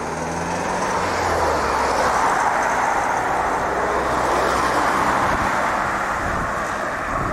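Road traffic: a motor vehicle passing close by. Its engine hum and tyre noise swell over the first couple of seconds and hold; the low engine tone fades out near the end.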